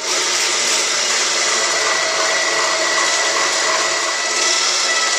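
Electric citrus juicer running, its motor spinning the reamer as a lemon half is pressed down onto it: a steady whirring hum with a faint whine, switching on abruptly.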